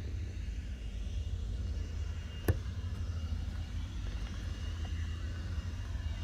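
Steady low outdoor rumble with one sharp click about two and a half seconds in.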